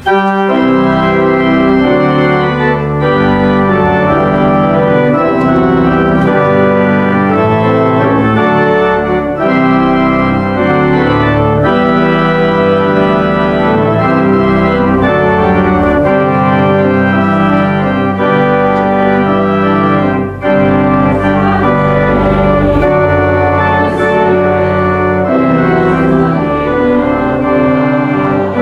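Organ playing a hymn in held, full chords, coming in suddenly at the start.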